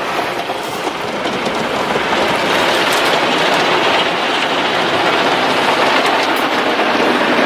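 Automatic car wash spraying and scrubbing the car, heard from inside the cabin: a loud, steady rushing wash that builds over the first couple of seconds and then holds.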